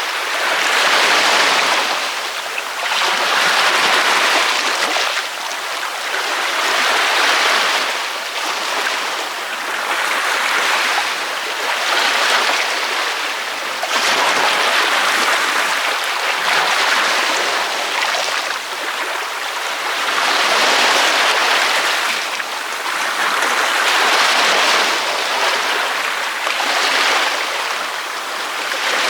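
Ocean waves breaking on a beach, the surf rising and falling in repeated swells about every three seconds. It is a steady hissing wash with little deep rumble.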